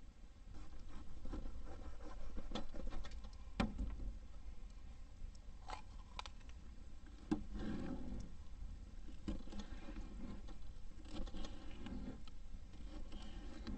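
A knife cutting a yellow bell pepper on a plastic cutting board: crisp slicing with irregular sharp clicks of the blade against the board.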